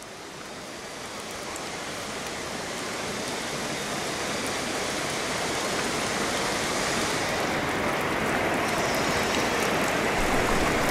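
Rain falling steadily on wet concrete, an even hiss that fades in and grows louder over the first few seconds, then holds.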